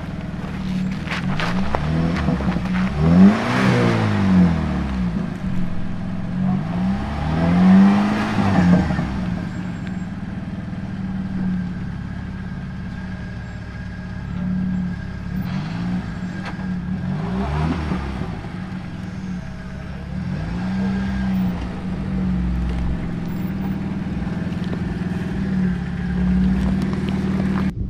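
Jeep engines running on a dirt trail, revving up and falling back several times as a Jeep climbs a loose hill. The biggest revs come a few seconds in and again around eight seconds in.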